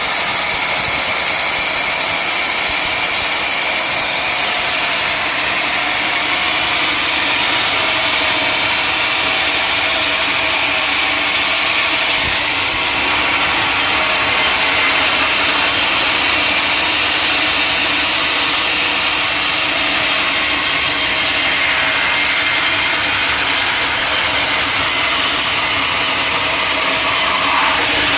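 Sawmill saw running and cutting through an acacia log, a loud, steady mix of motor and blade noise without a break.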